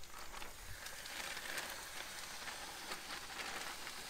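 Hot olive oil sizzling steadily on a preheated grill plancha, with fine crackles throughout.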